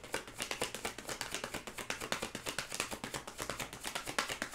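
Tarot deck being shuffled by hand: a quick, even run of soft card flicks and slaps, several a second.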